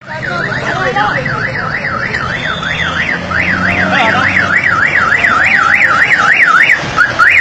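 Fire engine's electronic siren in yelp mode: a loud, fast rising-and-falling wail about four times a second, breaking off briefly twice, over a low engine hum.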